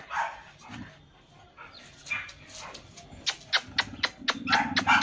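Chow chow panting quickly, about four breaths a second, starting around three seconds in, with a low drawn-out whine under it near the end.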